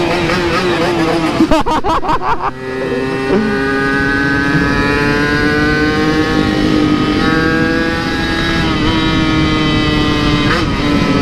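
Yamaha RX-King 135cc two-stroke single-cylinder engine with an aftermarket exhaust, revving hard under acceleration. The pitch climbs for about two and a half seconds, drops, then holds a high, slowly rising note at speed with brief dips later on.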